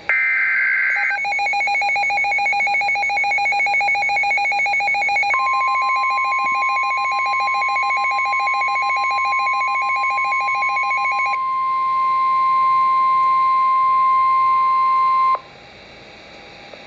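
NOAA Weather Radio emergency alert: a brief screech of the SAME digital data burst, then a rapidly pulsing electronic alarm beep. About five seconds in, the steady 1050 Hz weather-radio warning tone joins it. The beeping stops about eleven seconds in, and the tone cuts off suddenly about fifteen seconds in, leaving faint radio hiss.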